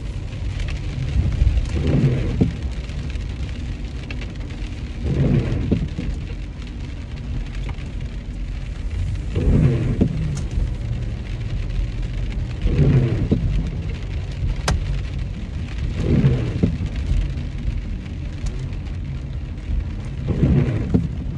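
Inside a moving car in the rain: steady low road and engine rumble with rain on the car, and a swish that swells and fades every three to four seconds.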